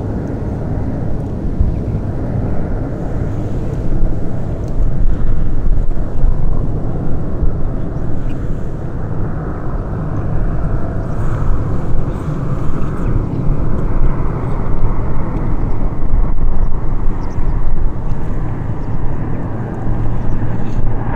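Propeller aircraft engine running, a continuous drone heard outdoors at an airfield.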